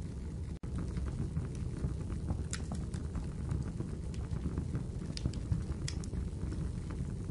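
Crackling fire ambience: a steady low rumble with scattered sharp crackles and pops. The sound cuts out for an instant about half a second in.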